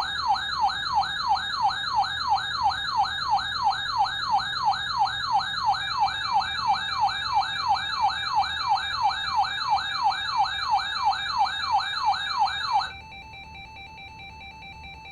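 Electronic siren-style emergency alert tone from a radio broadcast, warbling up and down about three times a second, sounding ahead of a tornado warning. It cuts off suddenly about 13 seconds in, leaving a much quieter steady two-note alert tone.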